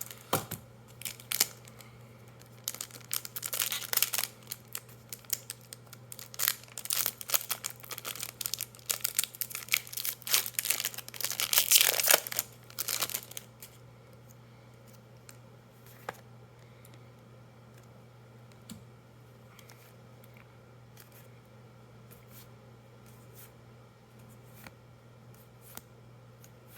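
Foil wrapper of a Magic: The Gathering booster pack being torn open and crinkled, dense and crackly for about the first half, loudest just before it stops. After that, only faint scattered clicks.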